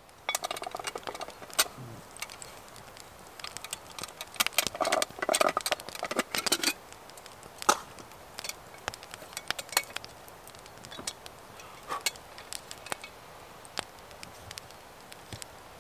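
Small wood fire crackling and popping in a metal fire pan, with metallic clinks and rattles of cooking gear being handled, loudest about four to seven seconds in.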